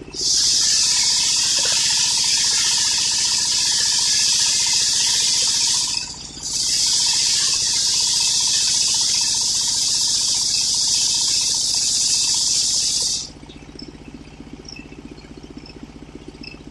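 Homemade circular-saw sawmill blade cutting through an old coconut-palm log with a loud, high hiss. It breaks off briefly about six seconds in and stops about thirteen seconds in. The engine driving the saw runs on with a low, steady beat.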